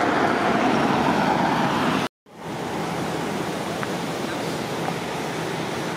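Steady outdoor rushing noise, like wind on the microphone or distant traffic. It cuts out completely for a moment about two seconds in, then returns a little quieter with a faint low hum underneath.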